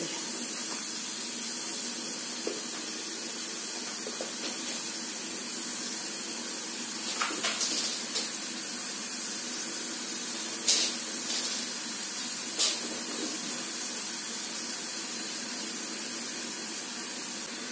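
Faworki dough strips deep-frying in a pot of hot rapeseed oil: a steady sizzling hiss, with a few short sharp clicks scattered through it.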